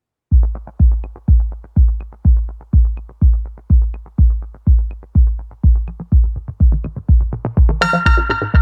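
Phonk music: a deep, booming drum-machine kick about twice a second with light ticking hats between, starting just after a moment of silence. Near the end a bright synth melody comes in over the beat.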